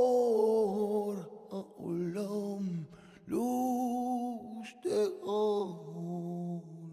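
A solo voice sings long, wavering wordless notes that slide between pitches in a chant-like melody, in several separate phrases. A low steady note is held near the end.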